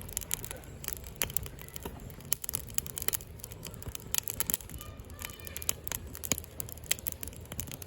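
Firewood burning in a Hillscam Firenado Large fire pit, crackling and popping with many sharp snaps over a low steady rumble.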